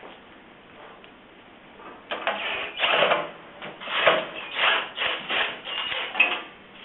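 Tool work on the kiln lid hinge: a run of short rasping, rubbing bursts starting about two seconds in and stopping after about six seconds.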